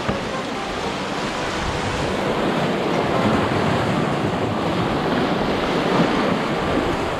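Muddy, flood-swollen creek rushing over rocks in small whitewater rapids, a steady rush of water.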